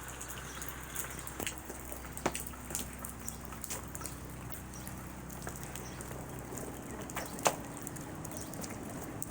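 Steady rain falling, with sharp drips of raindrops striking something close by, the loudest about two seconds in and again near the end.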